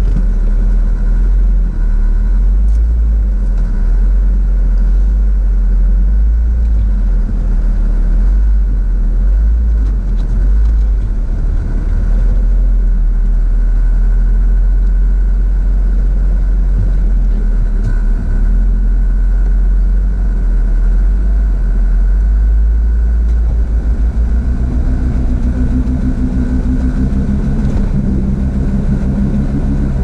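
Jeep Wrangler engine running at low speed as it crawls over rock ledges, heard from inside the cabin as a steady low rumble. In the last several seconds the engine note grows stronger and steadier as it works up the climb.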